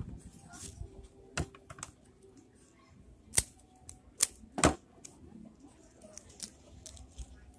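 Dry, sharp clicks and taps from hands handling rolled dried-leaf smokes and a thin rod on a wooden table. There are a few scattered clicks, with three loud ones between about three and five seconds in.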